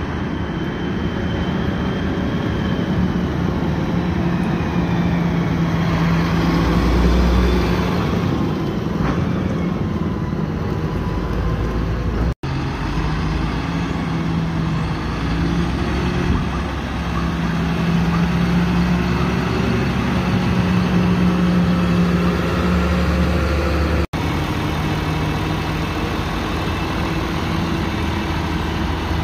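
Combine harvester running steadily under load, a deep engine hum with the whine of the machine over it; a few sliding tones rise and fall about six to eleven seconds in. The sound drops out for an instant twice.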